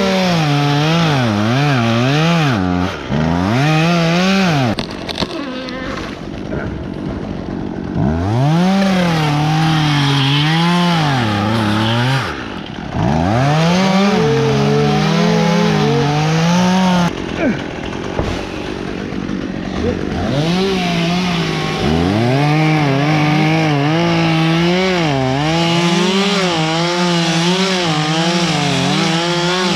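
Two-stroke chainsaw cutting wood, its engine pitch rising and sagging as the chain loads up in the cut. It drops back briefly a few times, near 4 s, 12 s and between 17 and 20 s, then runs hard again.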